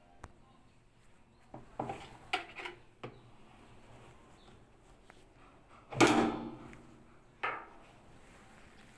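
A few clunks and knocks of hard objects being handled. The loudest comes about six seconds in, with a brief ring after it.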